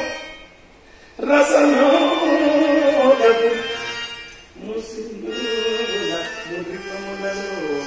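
Live singing of a Telugu stage-drama song with musical accompaniment: after a brief pause, a sung phrase comes in about a second in, followed by steadier held notes in the second half.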